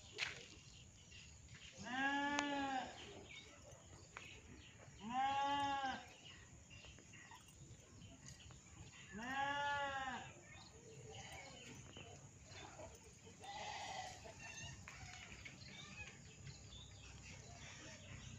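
A farm animal bleating three times, a few seconds apart, each call about a second long and rising then falling in pitch, with a fainter call later.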